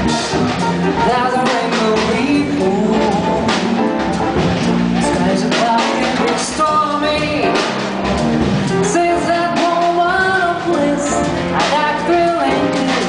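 Live jazz combo playing: a saxophone carries the melody over drum kit and electric bass.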